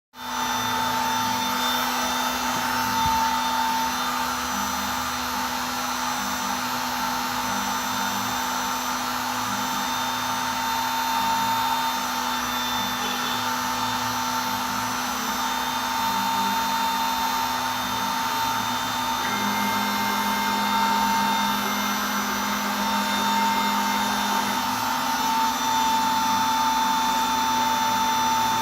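Home-built CNC router running a test cut: the spindle motor gives a steady whine over a hiss. A second, lower hum joins for about five seconds past the middle.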